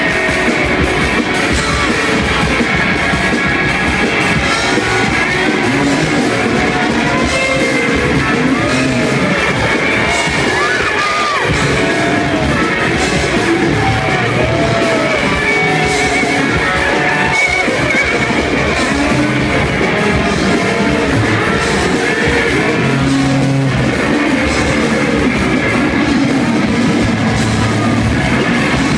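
Live noise-rock band playing loud, with dense distorted electric guitar full of short bending, warbling pitches over drums. The sound runs unbroken.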